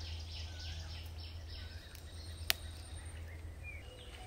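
Forest ambience with birds calling: a run of quick, repeated falling chirps and a few short whistled notes over a steady low hum. A single sharp click stands out about two and a half seconds in.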